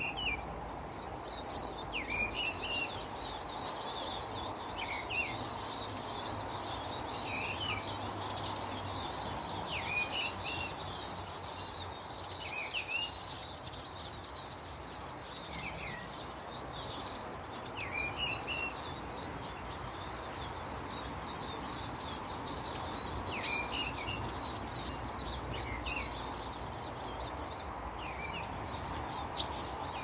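Small garden birds calling: constant high twittering from a flock, with a short, hooked call repeated about every two seconds.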